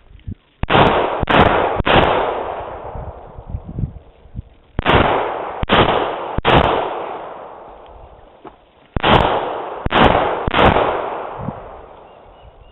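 Nine pistol shots fired in three strings of three, each string taking about a second and a half with a few seconds' pause between strings; every shot is sharp and followed by a long echo.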